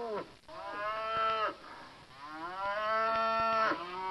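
Cattle mooing: several long, drawn-out moos one after another, played as a sound effect.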